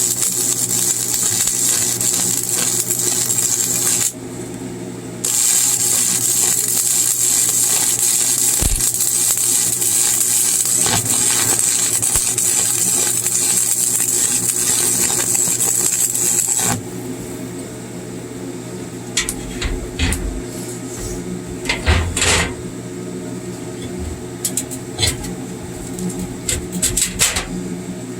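Stick welding with a 7018 rod: the arc crackles and sizzles steadily over a low hum, breaks off for about a second about four seconds in and is struck again, then stops about seventeen seconds in. After the arc goes out there are scattered sharp clicks and knocks.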